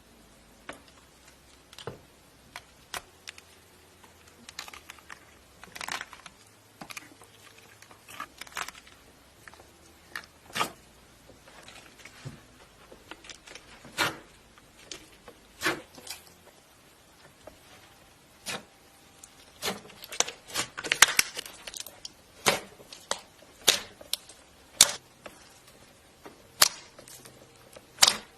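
Slime being squeezed and pressed by hand, giving irregular sharp pops and clicks as trapped air bubbles burst, with a dense run of crackling about two-thirds of the way through.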